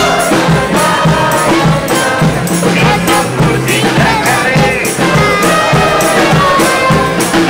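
Live street band music: acoustic guitars strummed over a quick steady percussion beat, with voices singing along.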